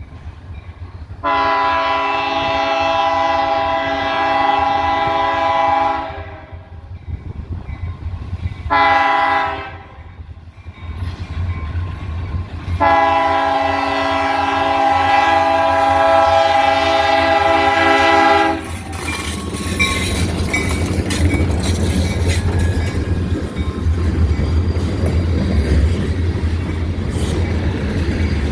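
Diesel locomotive horn of a Delmarva Central Railroad freight train sounding a chord in a long blast, a short blast and another long blast, the closing part of a grade-crossing signal. After that comes the steady rumble and rail noise of the train passing close by.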